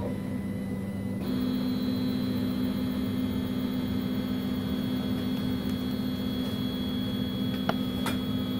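Hyrel 3D printer running at the start of a print, with a steady motor hum. A higher whine joins suddenly about a second in, and two short clicks come near the end.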